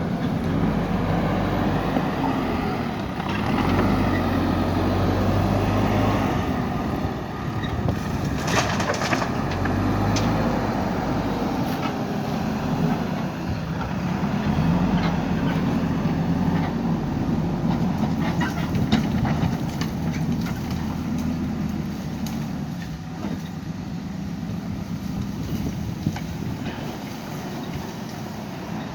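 JCB 3DX backhoe loader's diesel engine running, rising and easing with the load as it works, with a burst of clattering about eight seconds in and scattered knocks.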